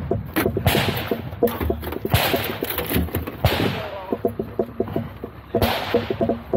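Gunfire on a practical-shooting stage: about six shots at irregular intervals, each with a long echoing tail, with a pause of about a second and a half before the last shot. A rapid light ticking runs underneath.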